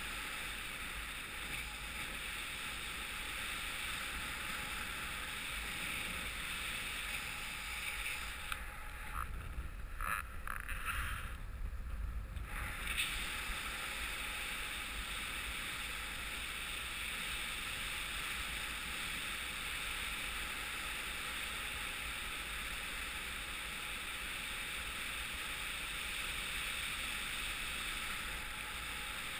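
Wind rushing past a camera on a paraglider in flight: a steady hiss over a low rumble. For a few seconds around the middle it turns gusty, the hiss dropping away and the low buffeting on the microphone getting louder.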